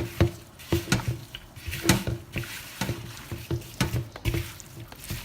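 Hands mixing diced raw chicken with seasonings in a bowl: irregular wet squishing and slapping.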